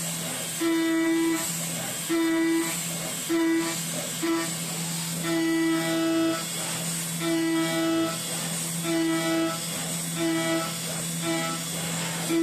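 CNC milling machine with a 10 mm two-flute endmill spinning at 10,000 RPM and cutting a metal block. A steady spindle hum runs under a high, singing cutting whine that comes and goes about nine times, in bursts of half a second to a second, as the cutter engages the work.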